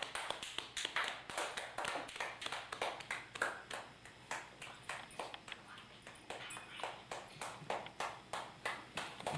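Hands clapping in an irregular patter, several sharp claps a second, running through the whole stretch and dipping a little in the middle.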